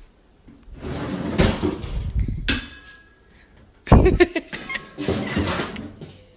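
A kitchen drawer under an oven being opened and rummaged through, with metal pots and pans clattering and knocking in several bursts. The loudest clatter comes about four seconds in.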